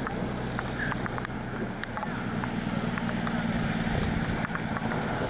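A diesel semi truck approaching on a hail-covered highway: a steady low engine hum that grows louder in the second half over the hiss of tyres throwing slush, with wind on the microphone and scattered sharp ticks.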